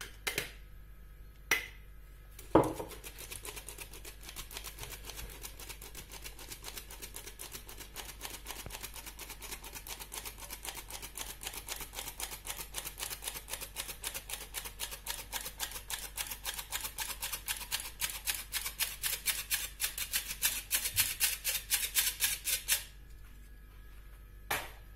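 Hand-held metal flour sifter being worked over a bowl: its mechanism gives a rapid, even clicking for about twenty seconds, growing louder toward the end and stopping a couple of seconds before the close. Before it starts there are a few sharp knocks, the loudest about two and a half seconds in, as flour is tipped into the sifter from a mug.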